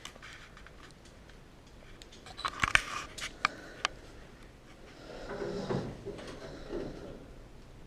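Hand tools and loose bolts clinking during car disassembly: a quick cluster of sharp metallic clicks and knocks about two and a half seconds in, then a muffled rubbing, scraping sound around five to seven seconds in.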